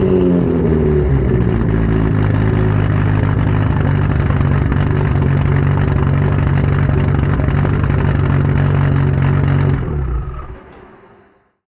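Mk4 Toyota Supra's turbocharged 2JZ straight-six engine and exhaust, revs falling in the first second and settling into a steady idle, then fading out about ten seconds in.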